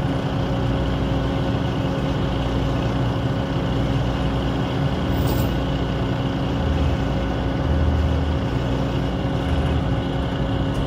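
1986 International boom truck's diesel engine running steadily at idle, with a constant hum. A brief faint hiss comes about halfway through.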